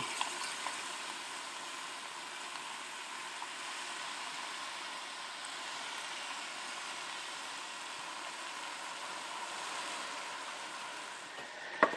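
Steady sizzle of risotto rice and chopped red onion frying in olive oil in a hot pan.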